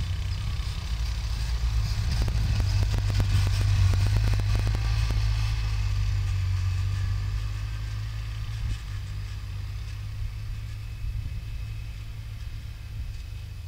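Polaris Ranger side-by-side UTV running as it drives past and away, its low engine hum loudest a few seconds in and then slowly fading. A scatter of clicks and rattles while it passes closest.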